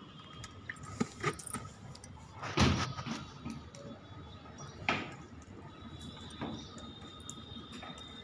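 A few scattered knocks and clatters, the loudest a little over two and a half seconds in and another near five seconds, over faint background noise.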